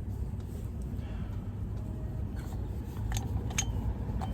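Several light metallic clicks of hand tools being handled, mostly in the second half, over a steady low rumble.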